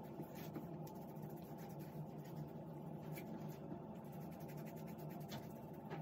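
Fingertips rubbing serum into a short beard: faint, scratchy rubbing of fingers against the beard hair and skin.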